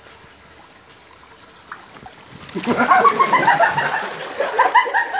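Faint splashing of pool water, then from about halfway through, people laughing in quick repeated bursts.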